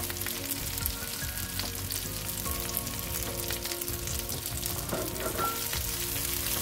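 Fried zucchini slices sizzling in hot olive oil and garlic in a frying pan, with many small pops. A wooden spoon stirs them near the end.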